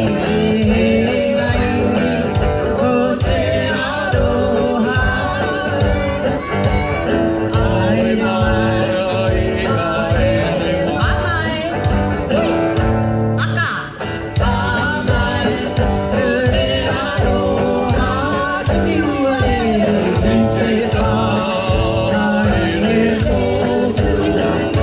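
Song with singing over a steady beat and instruments, with a brief break about halfway through.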